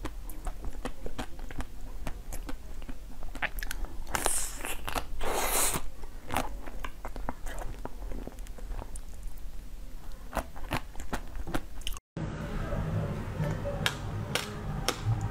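Crunching and chewing as a chocolate-coated frozen dessert is bitten, its hard chocolate shell cracking, with the loudest crunches about four and five seconds in. After a brief dropout about twelve seconds in, crisp bites into a frozen fruit come over a low hum.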